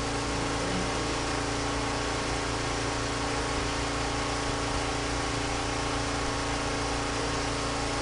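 Steady background hum and hiss with several constant low tones. It stays level throughout, with no clicks or other events.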